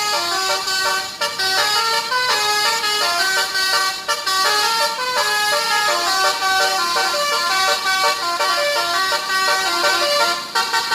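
A bus's basuri telolet melody horn playing a tune: a quick, continuous run of stepped notes sounded by several horn trumpets at once.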